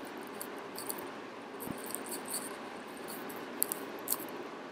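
Quiet room tone: a steady low hiss with scattered faint, sharp ticks.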